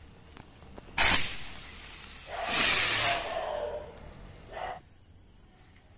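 Diwali drone cracker, a spinning aerial firework, hissing as it burns. A sharp, loud hiss starts suddenly about a second in. A louder hiss with a faint falling whistle follows around the third second, and a last short hiss comes near the end.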